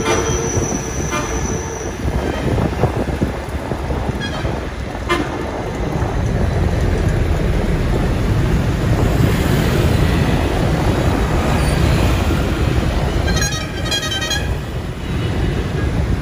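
Steady rumble of riding a motorbike through town traffic, with engine and road noise. A vehicle horn sounds at the start, held for about two seconds, and another gives a quick run of beeps near the end.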